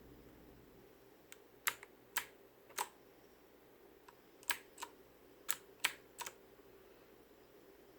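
Keys on a Fuhlen G903S mechanical keyboard pressed one at a time, about ten separate clacks, some in quick pairs, spread unevenly with pauses between them. These are function-key combinations being pressed to step through the lighting modes.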